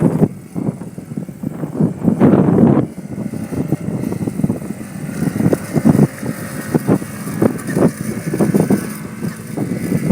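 Small engine of a Polaris 50 youth ATV running unevenly, mixed with irregular knocks and rushes, and a louder rush about two seconds in.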